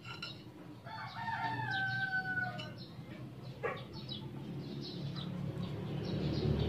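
A rooster crowing once, a drawn-out crow of about two seconds that falls slightly in pitch at the end, with small birds chirping around it. A single light knock follows about a second after the crow.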